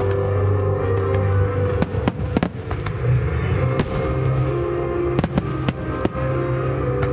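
Aerial firework shells of a starmine display bursting with about ten sharp bangs, the first about two seconds in. Under them runs the display's accompanying music, with long held notes.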